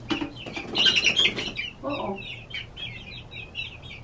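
Buff Orpington and Barred Rock baby chicks peeping continuously in quick, short high chirps, with a louder flurry of chick movement in the wood-shaving bedding about a second in.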